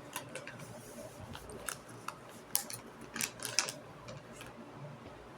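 A series of light, irregular clicks and ticks, about a dozen over a few seconds, over a faint background.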